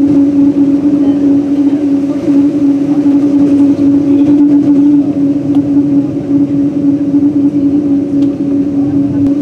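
Boeing 777-200's engines running at taxi power, heard inside the economy cabin: a loud, steady drone with a constant low hum over a rushing noise.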